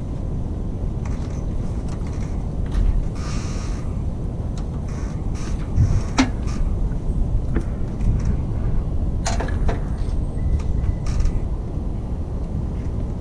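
Scattered clicks and light knocks of hands working on parts in a 1981 Jeep CJ7's engine bay, the sharpest about six seconds in and a pair a little after nine seconds, over a steady low rumble.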